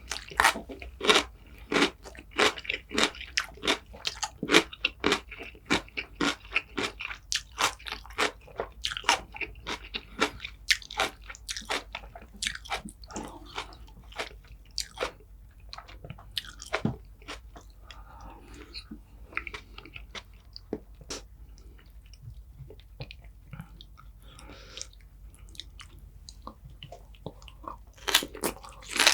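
Close-miked eating: a person biting and chewing food with crisp crunches, fast and dense for the first dozen seconds, then sparser and softer wet chewing.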